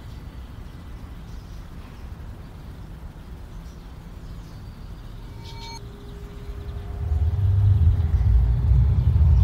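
Low rumbling background noise, like outdoor ambience, with no music. A faint steady tone joins about five seconds in, and the rumble grows louder about seven seconds in.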